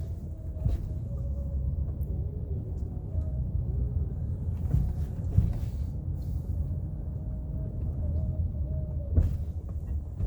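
Steady low rumble of wind buffeting the microphone, with a faint wavering hum above it.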